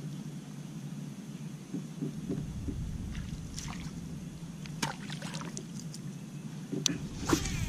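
Water sloshing and small splashes around a plastic fishing kayak, with a handful of sharp knocks and clicks in the second half over a steady low rumble.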